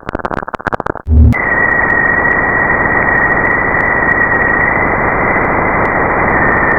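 Space sonification audio: rapid static-like crackling for about a second, a brief low hum, then a steady loud hiss with a constant high whistling tone over it.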